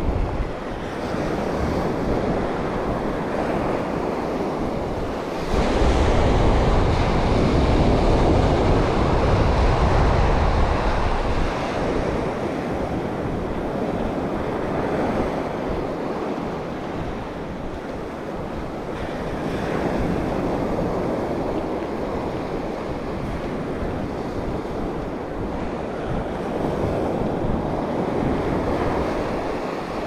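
Surf breaking on a sandy shore in strong wind, with wind buffeting the microphone. The wind and surf swell louder, with a heavy low rumble, from about six to eleven seconds in.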